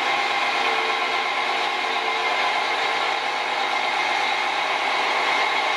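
Liebherr mobile crane's diesel engine running steadily while it swings a heavy load, heard through a small speaker with almost no bass.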